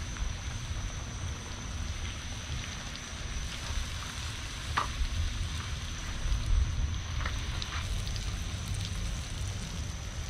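Battered fish nuggets deep-frying in hot vegetable oil in a cast iron skillet: a steady sizzle with a few sharp pops.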